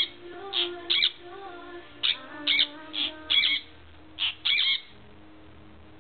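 Sun conure giving a string of short, shrill calls, about two a second, which stop about five seconds in.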